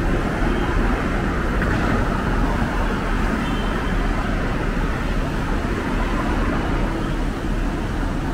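Steady city street noise, mostly road traffic running past, with a constant low rumble.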